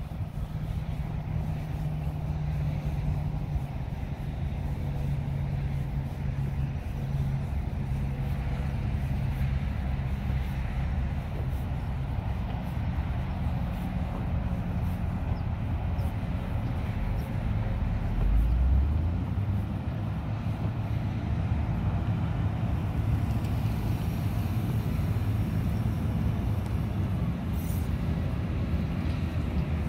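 Motor grader's diesel engine running steadily as the grader drives closer, with a deeper, louder rumble about 18 seconds in.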